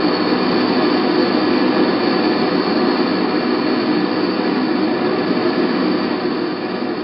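Steady jet aircraft noise in flight: an even rushing noise with a faint high steady whine.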